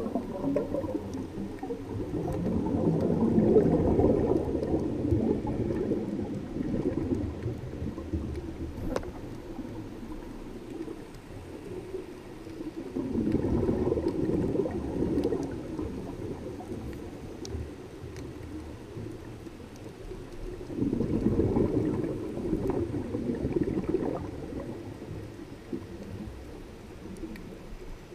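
Scuba regulator exhaust bubbles rushing and gurgling past an underwater camera housing: three long exhalations about eight seconds apart, with a few faint clicks in between.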